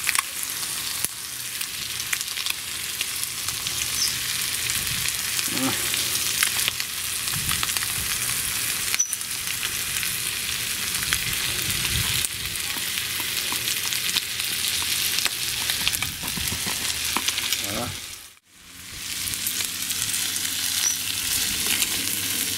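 Leek, diced Kassler and vegetables sizzling steadily as they fry in a De Buyer iron pan over a wood-fired Bushbox XL stove, with a spatula stirring the pan. The sizzle drops away for a moment near the end, then comes back.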